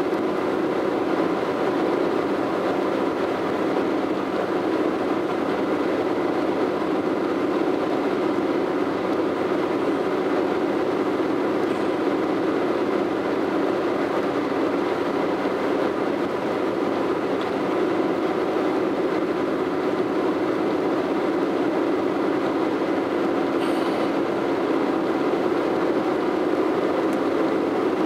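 Steady road and tyre noise of a car driving at highway speed, heard from inside the cabin as an even, unbroken drone.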